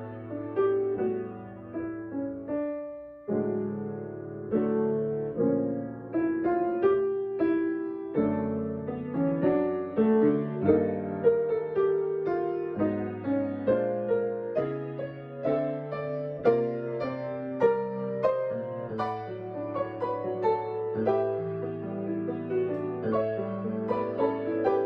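Solo piano playing a slow, gentle piece, with a brief pause about three seconds in.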